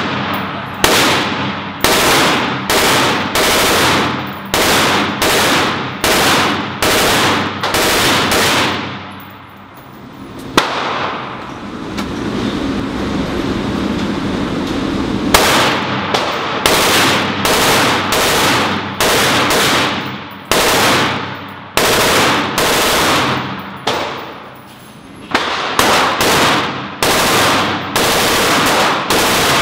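Steyr AUG rifle fired in a steady string of single shots, about one to two a second, each shot echoing off the walls of the indoor range. A pause of several seconds near the middle is filled by a steady noise, and a shorter pause comes near the end.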